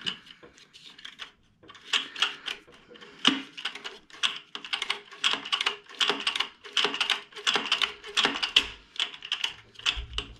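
Rapid, irregular clicking and light metallic clatter of hand tools and small parts being worked. It is sparse for the first two seconds, then dense and continuous.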